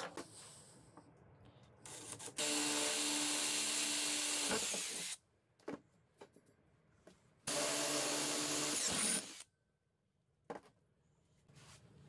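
DeWalt cordless drill boring into the steel shell of an old refrigerator compressor, in two runs: one of nearly three seconds starting about two and a half seconds in, then a second of about two seconds after a short pause. A few light clicks and knocks come before and after the runs.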